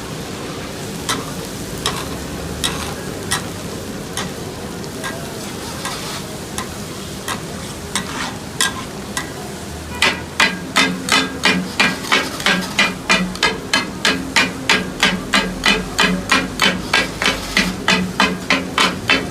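Metal spatulas striking and chopping on a hot iron tawa griddle over frying food, takatak style. Scattered strikes at first, then from about halfway a fast, even beat of three to four strikes a second, with the griddle ringing under them.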